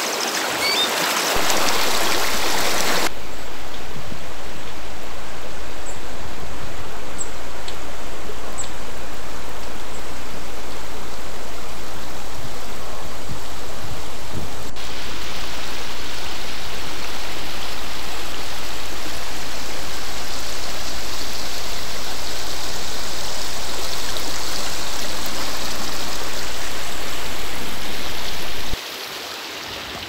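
Fast-flowing stream water rushing over rocks, a steady, even rushing sound. It changes character about three seconds in and drops to a much quieter flow about a second before the end.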